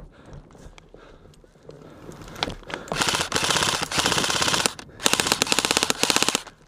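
Airsoft electric rifle, a KWA KM4 M4-type AEG, firing two long full-auto bursts of rapid, evenly spaced shots, each about a second and a half long, with a short gap between them.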